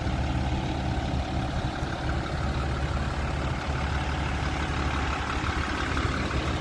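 Isuzu FRR110-260 truck's diesel engine idling steadily.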